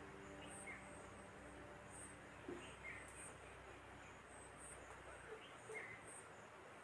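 Near silence, with faint high insect chirps repeating about once or twice a second and a few fainter, lower chirps.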